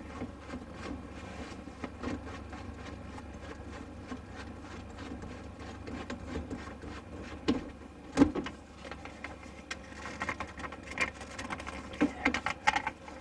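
Hands handling plastic drain pipe and fittings under a sink as the pipe is disconnected: scattered clicks, rattles and small knocks, with one sharper knock about eight seconds in and a run of clicks near the end.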